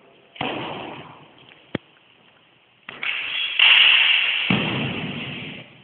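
Two fencers sparring with swords in an echoing hall. There is a single sharp clack about two seconds in, between two loud rushes of noise: a short one near the start and a longer, louder one of about three seconds as the fencers close in.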